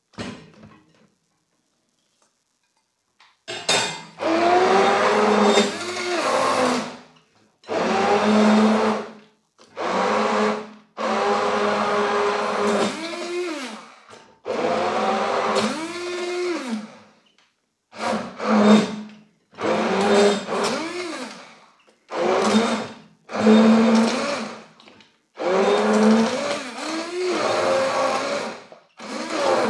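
Russell Hobbs 13891 200 W stick hand blender pureeing cooked cabbage in a glass bowl. It starts a few seconds in and is switched on and off in about a dozen short bursts of one to three seconds. Each burst's motor whine rises in pitch as it spins up and falls as it runs down.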